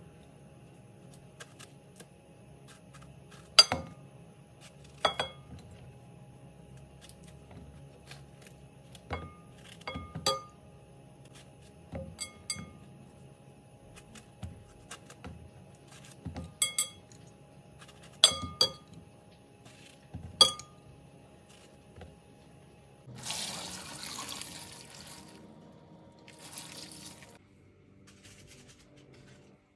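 Chunks of peeled eggplant, cut off by hand, dropping into a glass bowl, each landing with a sharp clink and a brief glassy ring, about a dozen times at irregular intervals. Near the end, a hiss of salt sprinkled from a spoon over the pieces, twice.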